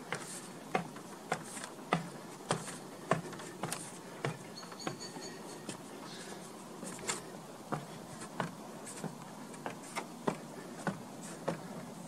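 Footsteps climbing the wooden stairs of a birdwatching tower, an even knock on the treads about three times every two seconds. A brief faint high chirp sounds about five seconds in.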